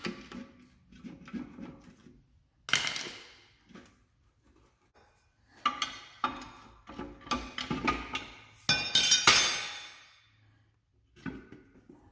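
Metal tools clanking and scraping against a Ford 8-inch rear differential as it is pried loose with a screwdriver and chisel: a series of separate metallic knocks and clinks, with a longer rattling scrape about nine seconds in.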